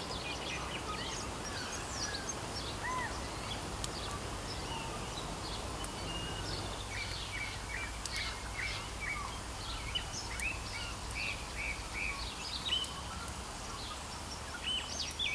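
Several forest birds calling and singing, with many short chirps and whistles and a run of repeated short notes in the middle, over a steady low background noise.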